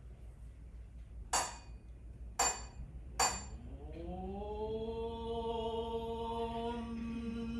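Three sharp strikes about a second apart, each with a brief high ring, then a Shingon Buddhist priest begins chanting, his voice gliding up into one long held note.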